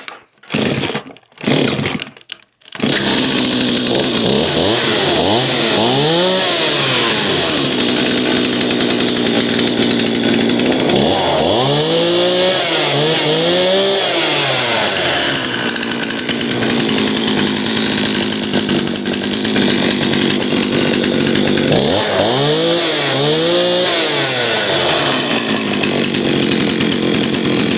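Jonsered 525 two-stroke chainsaw started on choke: a few short pull-start bursts, then it catches and runs steadily, blipped up and down in pitch five times in three groups (once, then twice, then twice near the end).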